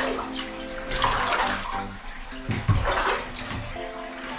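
Bathwater splashing and pouring in about three bursts as water is scooped and poured over a dog sitting in a bathtub.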